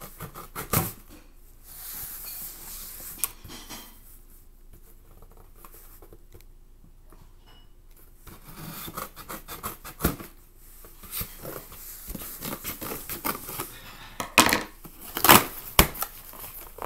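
Cardboard shipping box being opened by hand: scraping, tearing and rustling of cardboard and packaging, broken by several sharp clicks and knocks. The loudest knocks come in a cluster a little before the end, and there is a quieter stretch of a few seconds in the middle.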